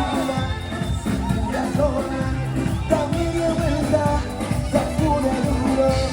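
Pop song playing, a singer over a steady beat.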